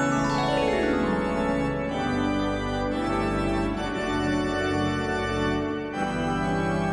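Church organ playing: a fast run of notes falling from high to low over the first two seconds, then full held chords.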